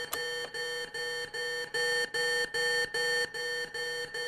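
Electronic alarm beeping in a steady repeating pattern, about three beeps a second, with a couple of sharp clicks among the beeps.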